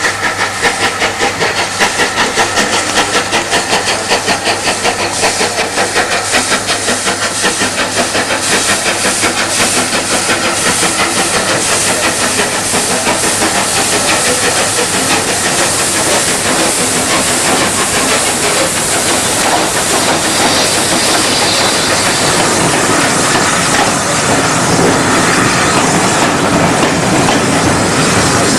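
Steam train on the move, with a fast, even rhythmic beat and steam hiss; the beat blurs into a steadier rush in the second half.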